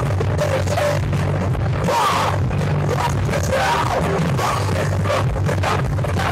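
A rock band playing live, with electric guitar, bass guitar and drum kit and a singer's voice over them, recorded at low sound quality.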